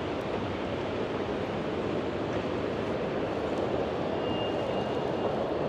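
Steady rushing hum of a running escalator, with a faint thin high tone for about a second near the end.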